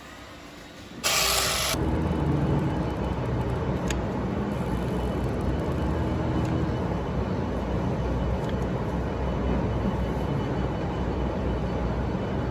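A loud hiss lasting under a second, then a steady low machine rumble with a faint hum.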